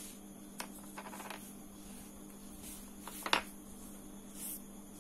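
Small metal parts of a spinning reel's one-way roller clutch being handled and set down on a wooden table: a couple of light clicks and a short rattle about a second in, then one sharper click just past three seconds. A steady low electrical hum runs underneath.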